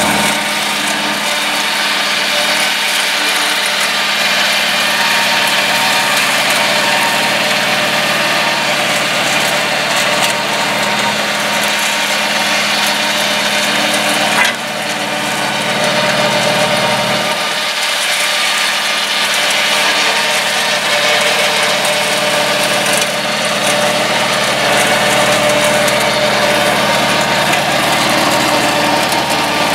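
A mini crawler tractor's 954 cc two-cylinder diesel engine runs steadily under load while its rear Zanon flail mower's spinning rotor shreds tall grass and weeds, a dense continuous whirring. A single short knock about halfway through.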